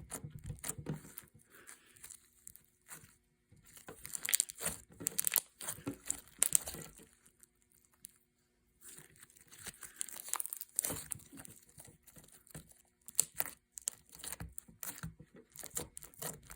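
Crunchy slime being worked in close-up, giving clusters of crisp crackles and crunches, with a pause of about a second and a half partway through.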